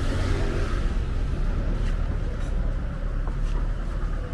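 City street traffic: cars running past with a steady low rumble.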